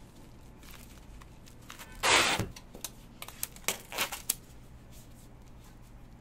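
Plastic cling film tearing: one short, loud rip about two seconds in, followed by a few light crinkles and taps.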